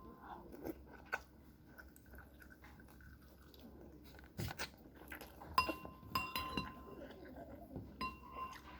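Quiet chewing with a spoon clinking against a bowl several times, the clinks ringing briefly and coming mostly in the second half.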